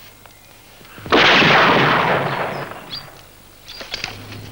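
A shotgun fires once about a second in: a loud blast that dies away over about two seconds. Birds chirp faintly, and a few short clicks come near the end.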